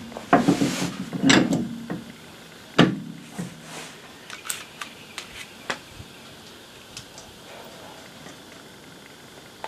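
Hand-tool work on a car: a cluster of sharp knocks and clatters in the first three seconds, then scattered light ticks and clicks.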